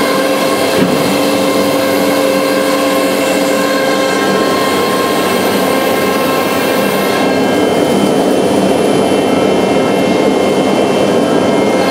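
Techno CNC router's 10 HP spindle cutting melamine-faced particleboard, with the machine's 25 HP blower running: a steady, loud whine of several tones over a dense hiss.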